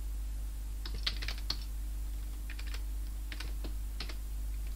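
Keystrokes on a computer keyboard, typing a line of BASIC in short bursts of a few clicks each, over a steady low hum.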